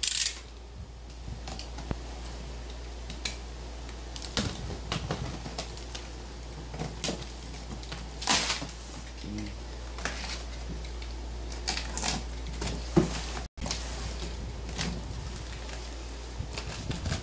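A cardboard box being opened with a box cutter: scattered scrapes, taps and rustles as the packing tape is cut and the box is handled and its flaps pulled open, over a steady low hum.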